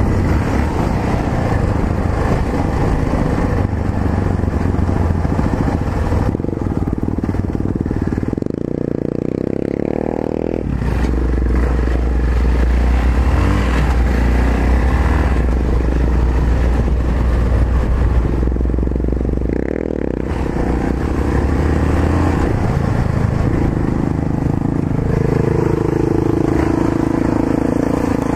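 Yamaha XT660Z Ténéré's single-cylinder four-stroke engine running under way. It revs up about eight seconds in and drops sharply as it shifts gear, then runs steadily. Its pitch falls near the end as the bike slows.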